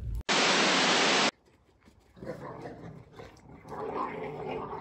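A sudden one-second burst of loud hiss that cuts off sharply. About two seconds in, a Dogo Argentino begins to growl and grumble in two short stretches.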